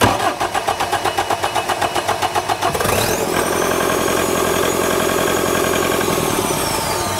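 Bobcat D34 turbo diesel engine cranking on the starter with quick, even chugs, catching about three seconds in and running steadily, with a high turbocharger whistle that rises as it fires and falls away near the end. This is the rebuilt engine's first successful start after a faulty crankshaft with a misplaced keyway was replaced.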